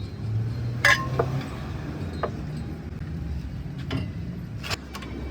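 Metal tools clinking against each other a handful of times, the loudest clink about a second in, over a steady low hum.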